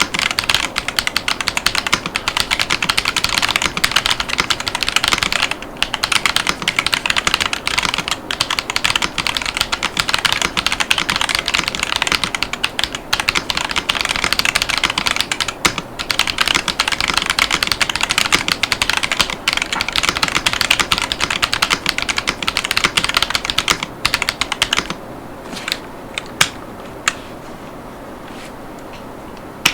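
Continuous rapid typing on a Yunzii X75 mechanical keyboard with KiiBoom Taro Cream tactile switches and polycarbonate Cherry-profile keycaps, giving a clacky sound in a thin acrylic case. The typing thins out near the end to a few single keystrokes.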